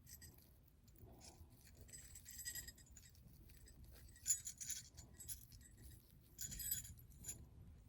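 Small jingle bells on a doorknob ornament jingling faintly in three short bursts as they are handled.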